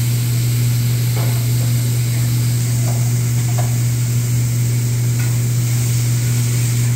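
Shrimp, steak and chicken sizzling on a teppanyaki griddle, an even hiss over a steady low hum, with a few faint taps of the chef's spatula early in.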